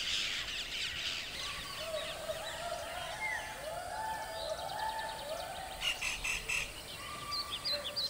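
Wild calls in the forest: at first a flock of birds chattering, then a chorus of many overlapping, repeated rising-and-falling calls.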